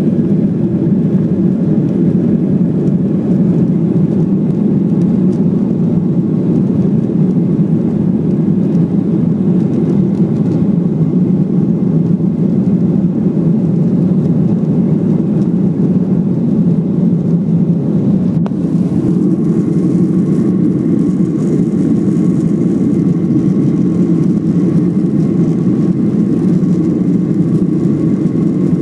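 Jet airliner heard from inside the passenger cabin while it is on the ground before its takeoff run: a steady, loud low rumble of the engines. A faint steady tone joins about two-thirds of the way through.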